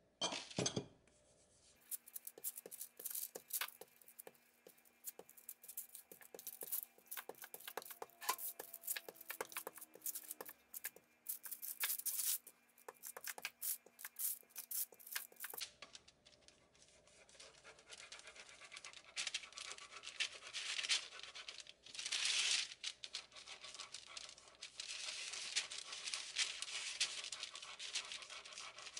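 Brown non-stick baking paper crinkling and rustling as hands pat and press raw seed dough flat on it, with many sharp taps and scrapes. About halfway through the taps give way to a denser, steadier crinkle.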